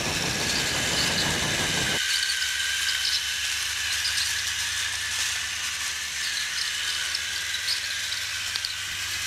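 Battery-powered Trackmaster toy train engine running on plastic track: a steady high-pitched whine from its small electric motor and gears, with light clicking. The sound cuts off suddenly at the end.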